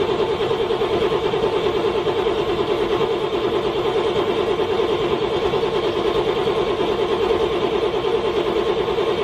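A cold car engine cranking on the starter without catching: a steady, even chug pulsing several times a second.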